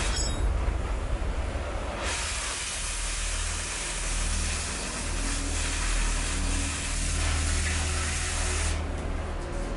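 Angle grinder biting into a long steel bar, a steady hiss of the abrasive disc on steel over the motor's hum. The hiss eases off right at the start, comes back about two seconds in, and lets up again near the end.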